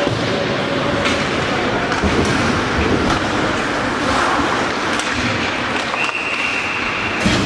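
Ice hockey game noise in a rink: a steady rush of skating and crowd sound broken by a few sharp knocks. About six seconds in, a high steady whistle tone sounds for over a second.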